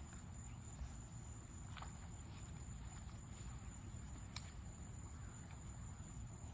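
Quiet outdoor background: a low rumble, a steady high-pitched whine, and two faint clicks, one about two seconds in and one a little past four seconds.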